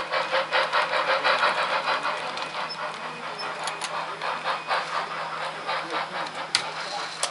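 Sound-equipped HO model steam locomotive chuffing rhythmically as it pushes cars through the yard, with a sharp click about six and a half seconds in.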